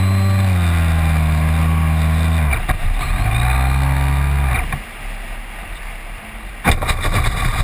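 Model airplane's electric motor and propeller buzzing steadily with its power cut about two and a half seconds in, then a short burst of throttle that cuts again a little before five seconds in. After that comes a rushing, scraping noise as the plane touches down and slides on grass, with a few sharp knocks near the end.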